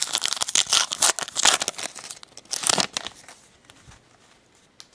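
Foil wrapper of a baseball card pack being torn open and crinkled for about three seconds, then fainter rustling and clicks as the cards are handled.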